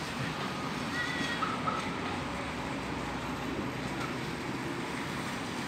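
Steady outdoor rumble of vehicle and traffic noise, with a few faint short high chirps about a second in.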